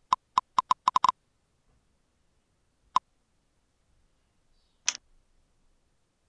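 Computer mouse clicks: a quick run of about seven clicks in the first second, then single clicks about three and five seconds in.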